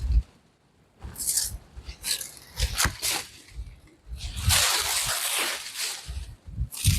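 Dry, dead banana leaves rustling and crackling as they are pulled and cut off the plants, in several irregular spells, the longest about four seconds in. Gusty wind buffets the microphone in low rumbles.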